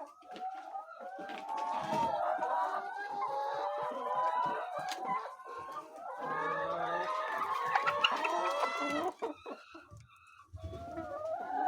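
A flock of laying hens clucking and calling over one another, with a short lull near the end.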